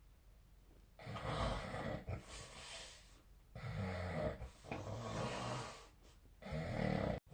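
A sleeping person snoring, three long snores about two and a half seconds apart, each a rattling low rumble with breathy hiss, with quiet breathing pauses between them.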